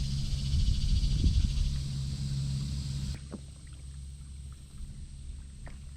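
A motorboat's engine drones steadily as the boat speeds past, going downstream; the sound drops off abruptly a little past halfway.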